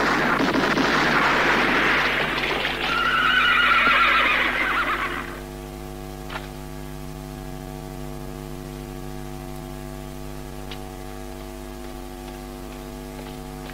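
Revolver gunshots and their echoing crack in quick succession, with a horse whinnying about three seconds in. From about five and a half seconds on only a steady soundtrack hum remains, with a single click a little later.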